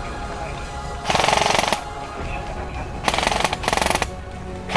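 Airsoft rifle firing three fully automatic bursts of rapid clicking shots: one burst about a second in, then two short bursts back to back about three seconds in.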